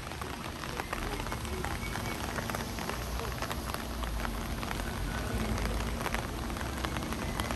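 Rain falling steadily, many separate drop hits over a continuous hiss, with a low rumble underneath.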